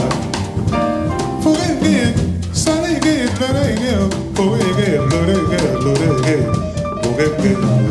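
Live jazz band playing: drum kit, piano and double bass, with a man's voice singing wordless lines over them.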